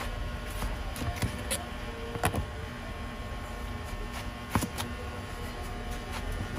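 A long kitchen knife slicing through a watermelon wedge, with a series of sharp knocks as the blade meets the cutting board, loudest about two seconds in and again past the middle. A steady low rumble of background noise runs underneath.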